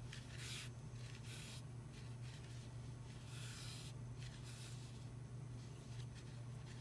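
Faint rustling and rubbing of yarn drawn across a yarn-wrapped ball in a few brief strokes, the longest about halfway through, over a steady low hum.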